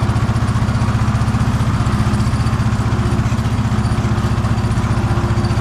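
Farm tractor engine running steadily with a fast, even pulsing beat, heard from the driver's seat close behind the upright exhaust stack.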